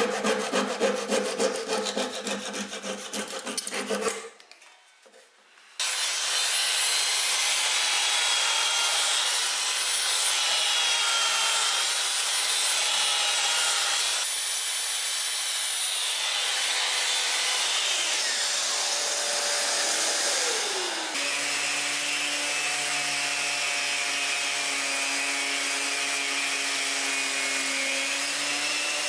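Handsaw cutting wood in rapid back-and-forth strokes for about four seconds, then a short pause. A handheld electric power tool with a dust-extraction hose then runs on the wooden chair seat, its motor falling in pitch as it winds down. From about two-thirds of the way through, a random orbital sander with a vacuum hose attached runs steadily on the wooden seat.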